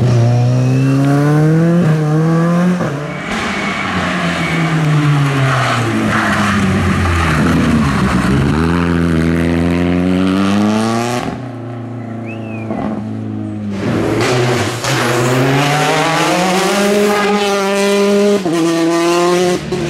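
Rally cars at racing speed: an engine revving hard up through quick gear changes, then the note falling as the car slows for a corner. After a quieter moment, another run follows with the engine climbing again through the gears.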